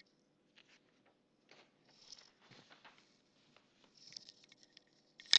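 Stylus tapping and scratching on a tablet's glass screen while a hash mark is written: scattered light ticks and short scratchy strokes, with a sharper click near the end.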